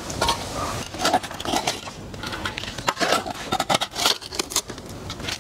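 A metal hand spade digging and scraping in gritty soil, making an irregular run of scrapes and sharp clicks.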